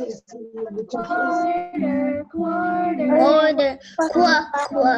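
Recorded children's phonics song: children's voices singing the letter-sound verses in short held phrases.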